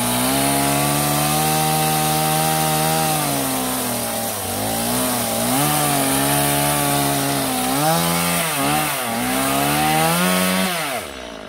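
Chainsaw running at full throttle, cutting through a lemon tree branch. Its pitch sags and recovers several times as the chain bites into the wood, then it drops back to idle near the end.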